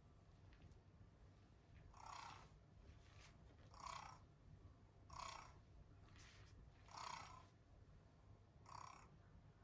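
Cooling fan of a Blackmagic Pocket Cinema Camera 6K giving five short, faint crackles about every one and a half to two seconds, as if a wire were rubbing inside it, each time the camera is turned quickly from right to left. Under them runs the fan's low, steady buzz.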